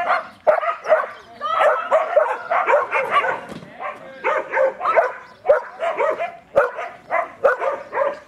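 A dog barking and yipping in quick, high calls, several a second, with hardly a pause.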